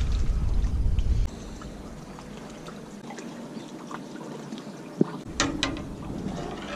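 Faint water lapping and trickling against the side of a moored boat, with a few light clicks and knocks about five seconds in as a fishing line is brought up beside the hull. A low rumble fills the first second or so.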